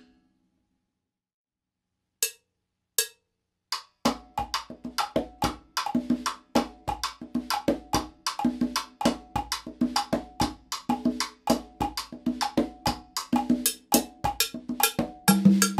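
A conga and a stick-struck wood block: after a pause and a few sparse clicks, a one-handed conga tumbao begins about four seconds in, played under a steady modified cascara pattern clicked on the wood block.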